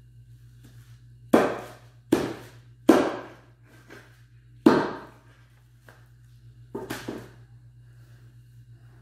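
Meat cleaver chopping through meat onto a wooden board: four heavy chops in the first five seconds, then a lighter double knock about seven seconds in.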